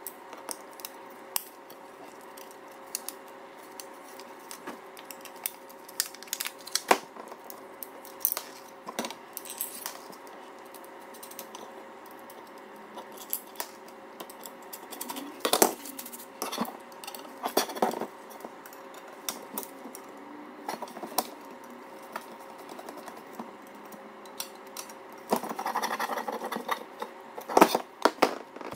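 Irregular light clicks and taps of small screws and frame parts being handled and fitted by hand while a quadcopter frame is assembled, with a short stretch of busier handling noise near the end.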